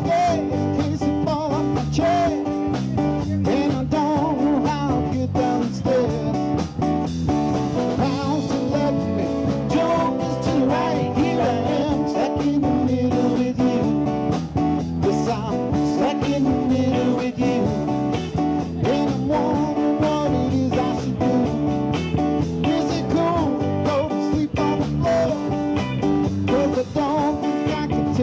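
Live blues-rock band playing: electric and acoustic guitars over a Pearl drum kit, with a man singing.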